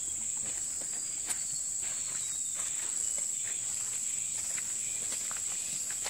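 Steady high-pitched insect chorus in tropical forest, with the faint footsteps of people walking on a wet, muddy trail.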